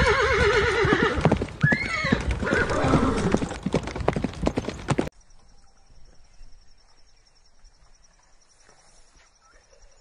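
Horse neighing: loud trembling whinnies with hoof clip-clops. The sound cuts off abruptly about five seconds in, leaving only faint sound with a thin high steady tone.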